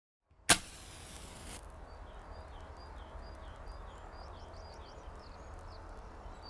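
A match struck on a matchbox about half a second in, flaring with a hiss for about a second. Then a bird calls with a run of short, repeated chirps, about two a second, over a low steady background rumble.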